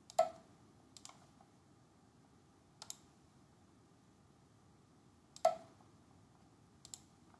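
Computer mouse clicks while working in CAD software: five short, sharp clicks spread out, some in quick pairs, the loudest near the start and about five and a half seconds in, over a faint room hiss.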